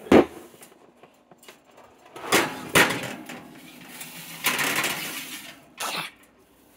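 A sharp, loud knock, then a couple of clattering knocks and about a second of rustling, with one more short knock near the end: kitchen handling noises.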